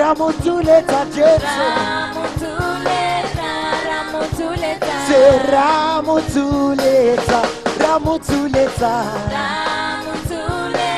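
Live gospel praise song: voices singing over a band with drum kit and a steady beat.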